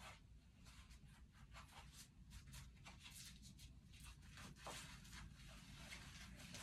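Faint rustling and scratching of a blood pressure cuff being handled and wrapped around an upper arm, over low room hum.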